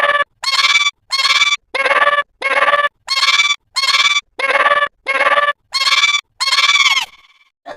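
One short pitched sound clip looped over and over, about eleven identical repeats at roughly three every two seconds, the last held a little longer. It stops cleanly about a second before the end.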